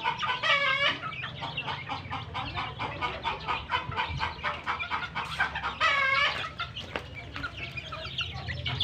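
A flock of native chickens, hens and young birds, clucking busily while feeding. Two louder, longer calls stand out, one about half a second in and another about six seconds in.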